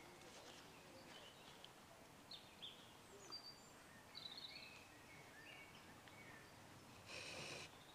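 Faint bird chirps in woodland. Near the end comes a short rasping stroke of a folding pruning saw cutting through a small stick of wood.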